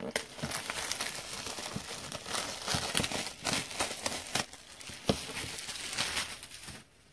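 Plastic shrink wrap being torn and crinkled off a sealed trading-card hobby box: a dense crackling with sharp snaps that stops shortly before the end.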